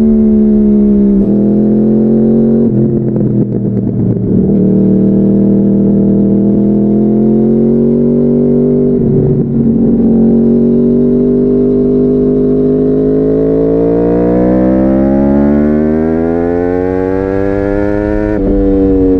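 2014 Yamaha YZF-R1's crossplane inline-four engine through a Bodis slip-on exhaust, under way. The engine holds fairly steady revs with a few gear changes early on and around the middle, then climbs steadily in pitch under acceleration and drops sharply on an upshift near the end.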